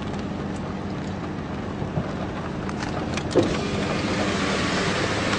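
Steady rumble of a car heard from inside the cabin, with a few small clicks; a rushing hiss, likely storm wind against the car, rises from about halfway through.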